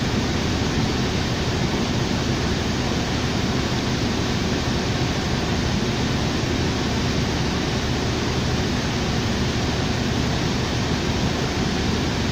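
Steady cabin noise inside a 2007 New Flyer D40LFR diesel transit bus: an even rushing hiss over a low steady engine hum.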